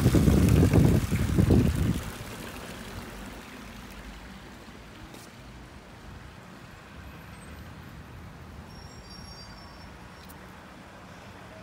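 Marble fountain splashing, its jets falling into the water of the basin, for the first two seconds. It then cuts off abruptly to a quiet outdoor background with a low hum and a few faint high chirps.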